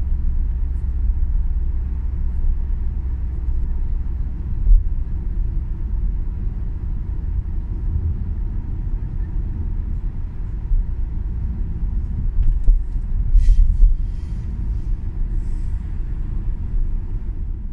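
Steady low rumble of a car driving on the road, heard from inside the cabin. There is a short run of sharp clicks about three-quarters of the way through.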